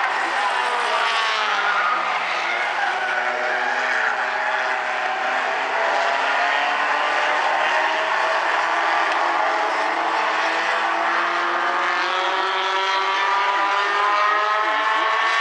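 Several small four-cylinder compact race cars running laps of a paved oval. Their engines overlap, each one's pitch rising and falling as it revs through the turns and passes by.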